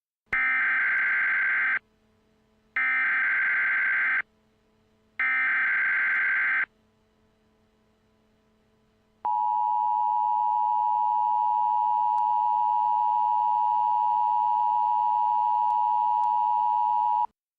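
Emergency Alert System signal: three short bursts of digital header data screech, each about a second and a half long, then after a pause the steady two-tone attention signal held for about eight seconds before cutting off sharply. It heralds a civil danger warning.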